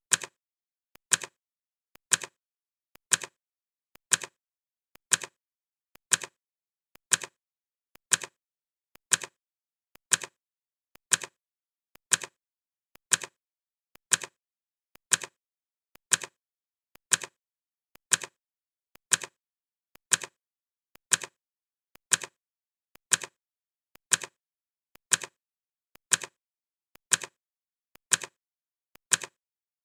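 Clock ticking sound effect, one sharp tick each second, each with a fainter click just before it.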